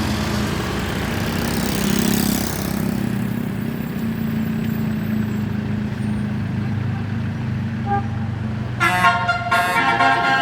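A bus engine running steadily, then about nine seconds in a Basuri "telolet" multi-tone musical bus horn starts playing its rapid chiming tune of short repeated notes.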